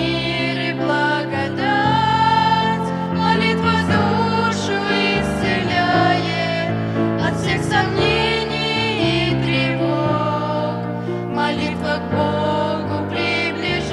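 A hymn sung to instrumental accompaniment, with long held notes that waver over sustained chords.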